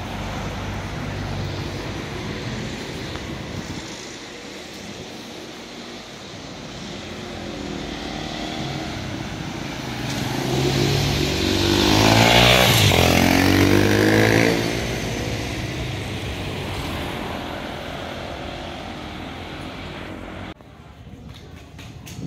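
Street traffic with cars running past, and a motorcycle passing close by about halfway through, the loudest sound, its engine note swelling and fading. The traffic sound drops away abruptly near the end.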